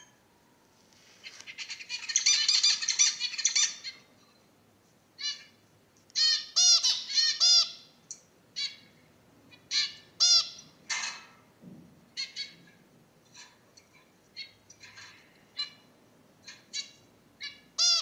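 Zebra finches singing and calling: a dense, buzzy run of song about a second in that lasts a few seconds, followed by a string of short, separate chirps and calls.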